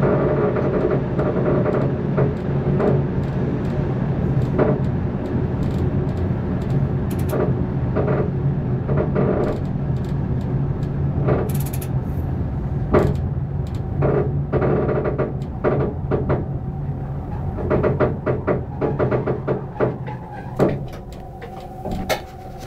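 Electric passenger train heard from the driver's cab, running with a steady low hum and irregular clicks and knocks from the wheels on the track. The hum stops near the end and the sound grows quieter.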